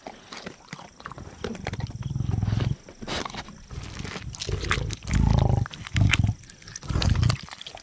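Lionesses growling over a fresh kudu carcass: several low growls, the longest about two seconds in and the loudest about five seconds in, with short sharp clicks of feeding between them.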